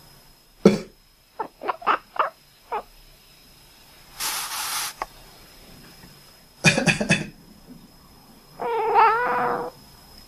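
A person coughing and a domestic cat answering with short duck-like quacking calls. There is a cough, then four or five quick chirping quacks, a breathy rush of air, a second cough fit about seven seconds in, and one longer, wavering call near the end.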